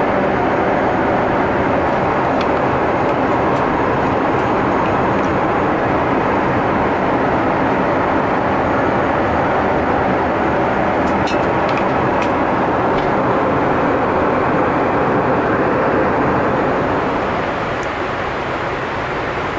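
Steady rushing cabin noise of a Boeing 747-8i jet airliner in flight, with a few light clicks around the middle. The noise drops slightly near the end.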